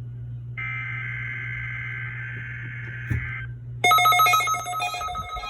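NOAA Weather Radio emergency alert data burst (SAME header), a raspy two-tone digital screech lasting about three seconds. At about four seconds it gives way to louder, rapidly pulsing electronic alert tones, with a steady low hum underneath.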